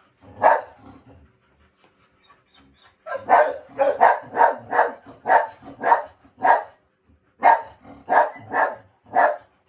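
A dog barking: a single bark, a short pause, then a fast run of barks at about three a second, broken once by a brief gap.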